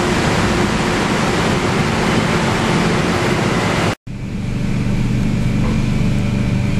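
An MTR K-Train electric multiple unit runs past close alongside a platform: a steady rushing rumble. About four seconds in the sound cuts out for an instant. It returns as the inside of a moving K-Train carriage, a steady low hum under a quieter hiss.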